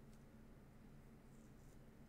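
Near silence: a steady low room hum, with a couple of faint, brief soft rustles a little past halfway.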